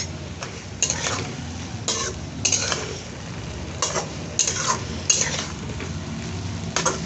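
A spatula stirring and scraping okra around a kadhai in irregular strokes, while the freshly added spice paste sizzles in the hot oil.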